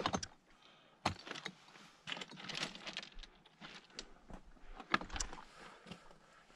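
Scrambling over loose, blocky rock: irregular clinks, taps and scrapes of boots and hands on stone, with small rocks clattering.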